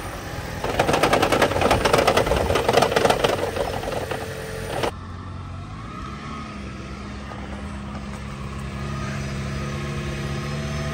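Rapid, loud clattering for about four seconds, cut off abruptly. Then a Toyota Prius petrol engine runs steadily; its pitch rises briefly, then holds.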